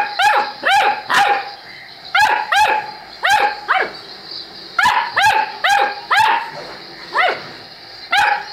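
Saint Bernard puppy barking: about a dozen short, high-pitched yaps, each dropping in pitch, in quick runs of two to four with short pauses between.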